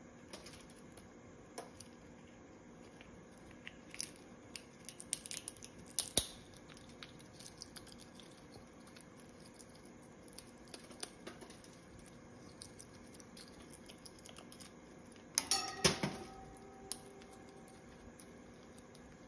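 Green-winged macaw cracking and chewing a nut held in its foot: scattered crunches and clicks of its beak working the shell, with louder cracks about six seconds in and a quick cluster of loud cracks near the end.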